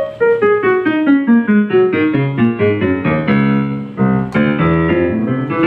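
Casio CT-X300 electronic keyboard sounding in a piano voice: a falling run of single notes, a few chords in the middle, then a fast rising run of notes near the end.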